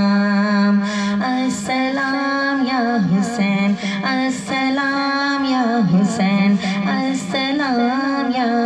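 A woman singing a salam, an Urdu devotional poem addressed to Imam Hussain, in long held notes that bend and slide in pitch.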